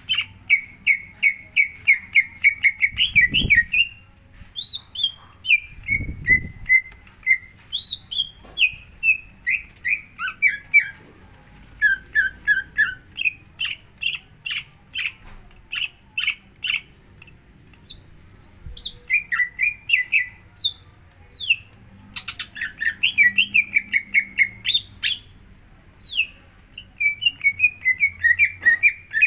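Green leafbird (cucak hijau) song: rapid runs of repeated chattering notes mixed with high, downward-sliding whistles, continuing in phrases throughout. It is the kind of bait song played to provoke a caged cucak hijau into singing. Two low thuds sound about three and six seconds in.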